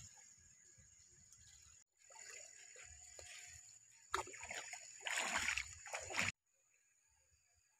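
Domestic geese wading through a shallow stream, water splashing and sloshing around them, loudest in the second half and cutting off abruptly near the end.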